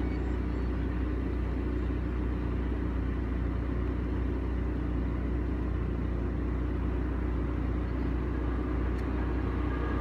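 Steady low rumble of a moving car's engine and tyres, heard from inside the cabin.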